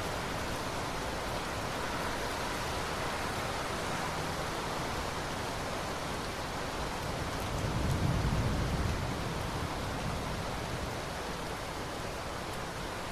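Steady rain, an even hiss with no separate drops standing out. A low rumble swells briefly a little past the middle, then fades back into the rain.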